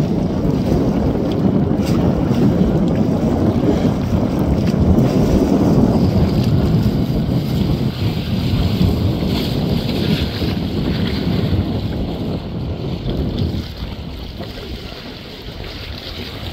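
Wind blowing across the microphone: a steady, low-heavy noise that drops in level about three seconds before the end.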